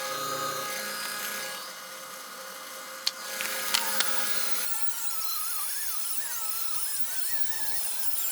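A high-pitched power tool at work, with a few sharp clicks about three and four seconds in, then a wavering squeal that rises and falls.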